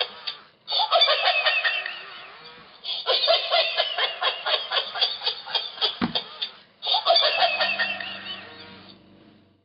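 Rolling laughing tiger plush toy playing recorded belly laughter through its small speaker. The laughter comes in three fits that start abruptly after short pauses, with a single thud about six seconds in.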